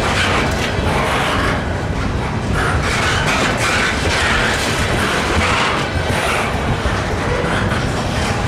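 Freight cars rolling past close by: steel wheels running on the rails with a steady rumble and a clatter that swells about once a second as the trucks cross the rail joints.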